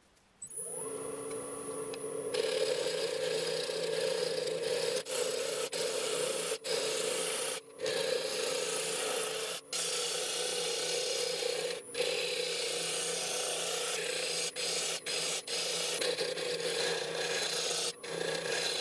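Wood lathe humming while a turning tool cuts the end of a spinning spalted ash piece: from about two seconds in, a continuous scraping, shaving hiss, broken by a dozen or so brief gaps as the tool lifts off the wood.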